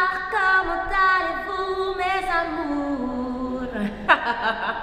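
A woman's voice singing long held notes that step down in pitch, then a brief sudden vocal outburst about four seconds in.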